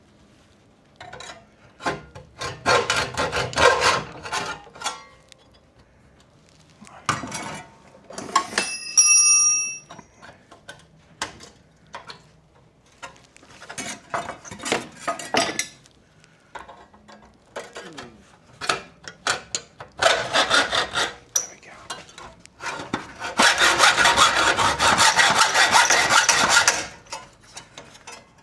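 Hacksaw sawing through a thin steel bracket, in irregular runs of rasping strokes with pauses between, and a long fast run of strokes near the end. About nine seconds in, the metal gives a brief ringing clang.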